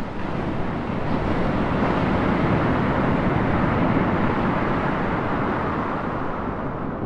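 Ocean surf: a steady rushing wash of waves breaking on a beach.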